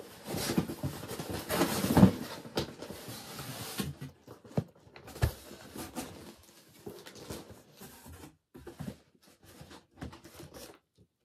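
Cardboard shipping box and its packaging handled and rummaged through: a few seconds of dense rustling and scraping, loudest about two seconds in, then scattered taps and knocks as a flat cardboard box is slid out.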